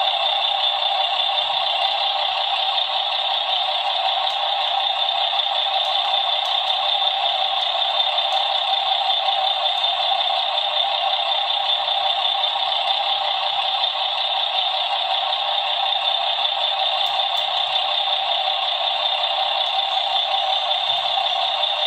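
A simulated truck running sound played through the model's small sound-module loudspeaker, a steady thin, tinny noise with no bass. A few faint clicks of handling sit on top.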